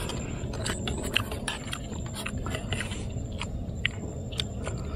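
People eating: spoons clicking and scraping against a camping cook pot and rice bowls, with chewing, as a scatter of short sharp clicks.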